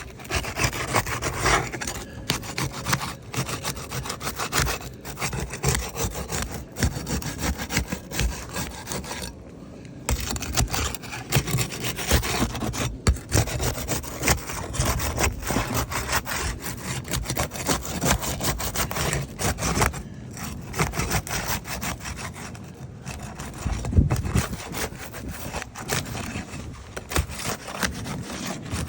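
A steel flat bar scraping and prying under roof shingles, working the tabs loose to get at the nails. The scraping and rubbing is rough and runs almost without a break, with scattered knocks and a brief pause about nine seconds in.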